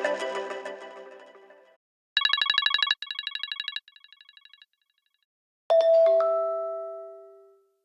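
iPad ringtones playing one after another. A melodic ringtone fades out, then a fast pulsing electronic tone plays three times, each quieter than the last, like an echo. Last comes a bell-like chime with a second, lower note that rings out and fades.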